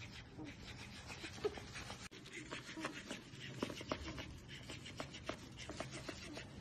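Faint clicking and scuffling as small dogs scrabble and tug at a plush toy fish on a tiled floor. The many short clicks and rubs come irregularly throughout, with a brief break about two seconds in.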